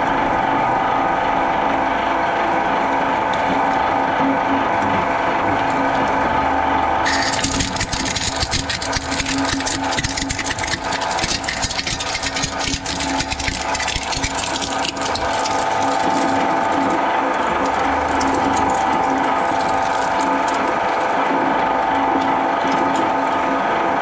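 Twin-shaft shredder running with a steady motor hum and whine. About seven seconds in its cutter teeth start crunching and cracking hard plastic bottle pieces in a dense crackle for about nine seconds, then it runs on nearly empty.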